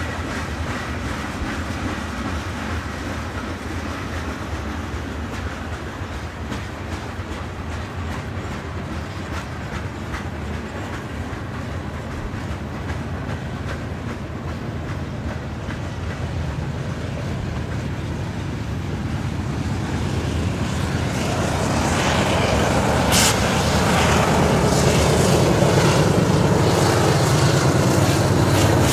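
Long freight train of covered hopper cars rolling past, the steady rumble of wheels and cars on the rails. From about two-thirds of the way in it grows louder as a mid-train Union Pacific diesel locomotive approaches, with a single sharp clank shortly after.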